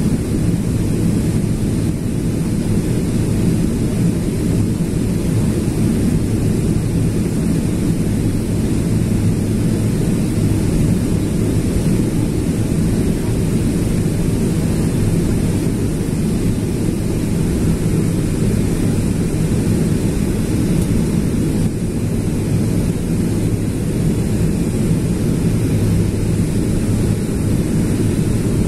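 Steady low roar inside the cabin of a Boeing 777-300ER airliner in flight, with a faint underlying hum.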